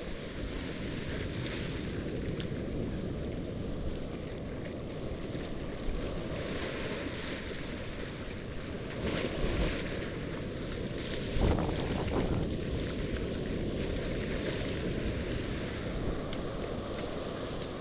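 Ocean surf washing up a sandy beach, with steady wind buffeting the microphone and a few brief louder surges.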